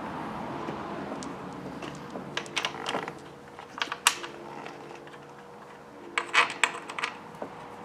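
Light metallic clicks and clinks of bolts and hand tools being handled while assembling a transfer case, in small clusters about two and a half seconds in, once around four seconds, and again about six seconds in.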